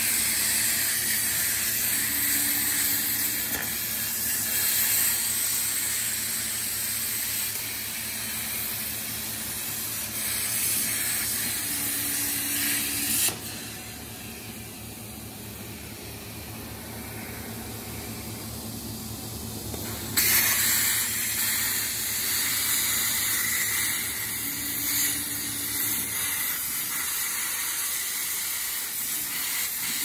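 CNC plasma cutter torch cutting sheet steel: the plasma arc and its air make a loud steady hiss. The arc cuts out suddenly about a third of the way in, leaving a quieter machine hum for several seconds, then strikes again with a sudden burst of hiss.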